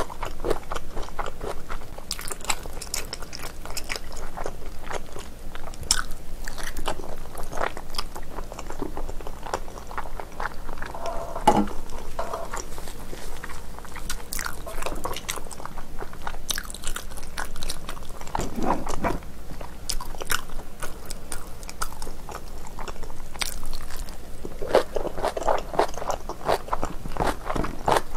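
Close-miked chewing and biting of chewy, spicy braised beef trotter as it is gnawed off the bone by hand. Many small mouth clicks run throughout.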